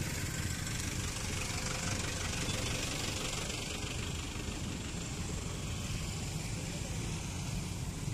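Steady engine noise of motor scooters and cars moving slowly past in a close line of traffic, with no single event standing out.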